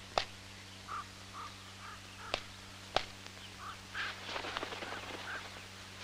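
Spotted nutcracker at a Swiss stone pine cone: short, soft call notes about every half second, with a few sharp clicks, over a steady low hum.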